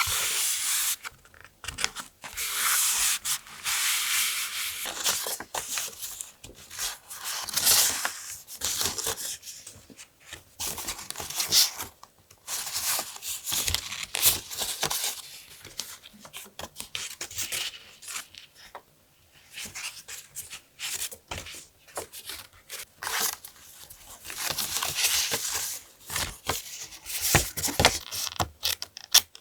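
Close-up paper-crafting sounds: paper and journal materials handled, rubbed and torn, in bursts of a few seconds with short pauses and small clicks and taps between them.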